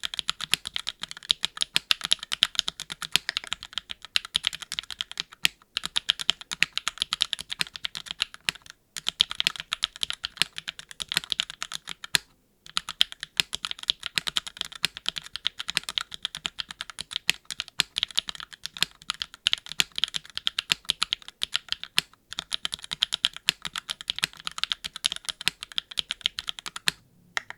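Fast continuous typing on a custom mechanical keyboard with linear Gateron x Swagkey Deepping switches and GMK keycaps on an aluminium plate, a quick run of key clacks with a few brief pauses. The typing stops just before the end.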